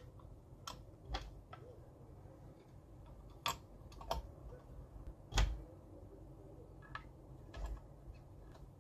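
Scattered light clicks and taps of computer hardware being handled while a CPU is fitted into a motherboard's CPU socket, the loudest tap about five and a half seconds in.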